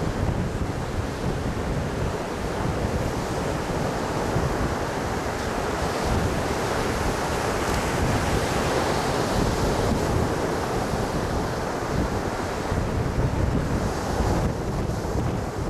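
Ocean surf breaking and washing up a sandy beach in a steady rush, fullest about halfway through, with wind buffeting the microphone.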